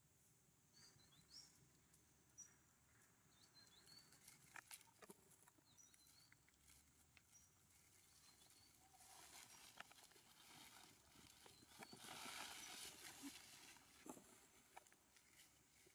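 Faint rustling and crackling of dry leaf litter as macaques move over it, loudest about twelve seconds in, with scattered light clicks and a few short, high chirps in the first few seconds.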